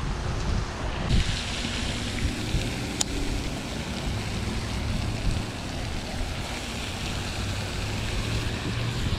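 Wind buffeting the microphone, with the steady hiss of a pond fountain's spray splashing onto the water coming in about a second in.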